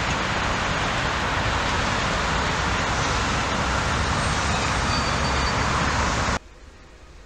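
Steady running noise of an electric locomotive moving slowly along yard tracks. It cuts off suddenly about six seconds in, leaving only a faint hiss.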